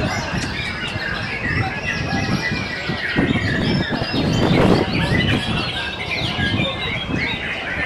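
Several caged white-rumped shamas (murai batu) singing at once: a dense, overlapping stream of quick whistles and chirps, over a low background rumble.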